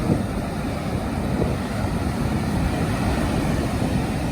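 Steady wind buffeting the microphone over the wash of breaking surf.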